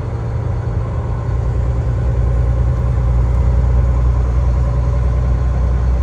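Vehicle engine idling with a steady low hum, growing a little louder about a second and a half in.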